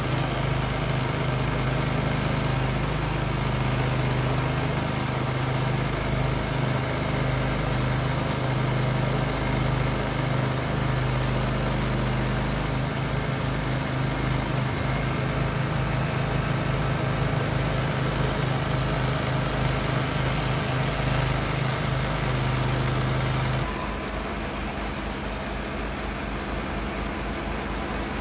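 Stump grinder powered by a 14 HP Kohler CH440 gas engine, running steadily at working speed while its toothed cutting wheel grinds into a tree stump. About 24 s in, the sound drops a little quieter and its low hum changes.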